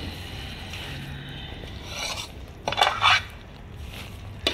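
A ladle scraping and stirring through flour roasted in ghee in a kadhai, a steady rasp with two louder scrapes about three seconds in and a sharp clink near the end.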